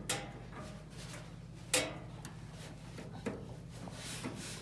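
Faint handling knocks and rubbing as the dryer's drive belt is worked onto the idler pulley by hand, with one clearer knock about two seconds in, over a low steady hum.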